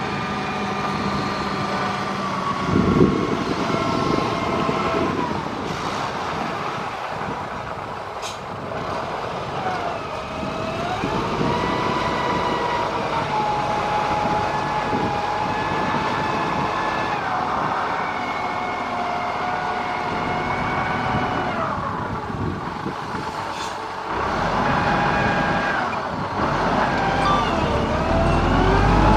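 Motor grader's diesel engine running under load, with a whine that slowly rises and falls in pitch as the revs change. There is a brief knock about three seconds in.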